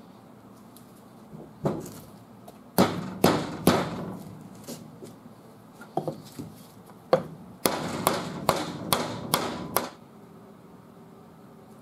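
Hammer blows on a wooden block laid over a cast-iron AMC trunnion suspension housing, driving the rebuild-kit parts into place. There are a few separate strikes, then a quick run of about seven blows that stops suddenly.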